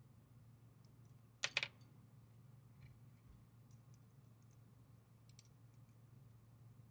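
Small metal clicks from a disassembled folding knife's handle liner and crossbar lock being handled in the fingers: a sharp cluster of clicks about a second and a half in, then a few faint ticks.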